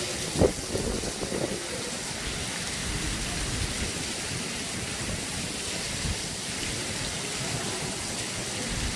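Rain falling steadily during a storm, with one brief loud thump about half a second in.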